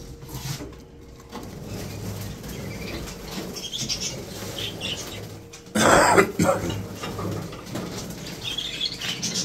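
A flock of budgerigars chirping, with a loud flurry of flapping wings about six seconds in as the birds are stirred up by being caught.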